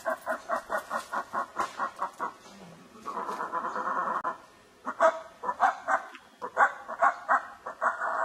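Howler monkeys roaring: a run of rhythmic, pulsing grunts, about four or five a second, swelling into a sustained roar about three seconds in, then more grunts and another roar starting near the end.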